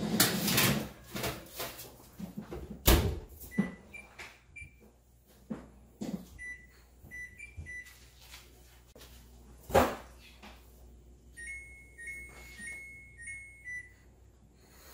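A foil-lined baking tray clatters onto an electric wall oven's rack, and the oven door shuts with a knock about three seconds in. Then come runs of short, high electronic beeps from the oven's keypad as the broiler is set, with another knock near the ten-second mark.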